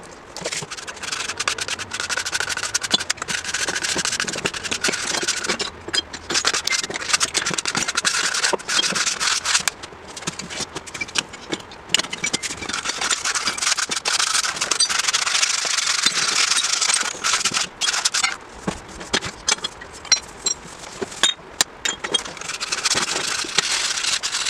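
Brake shoe lining on an old motorcycle drum brake plate being filed by hand: a dry rasping in spells of several seconds with short breaks and a few small clicks. The lining is more than likely asbestos.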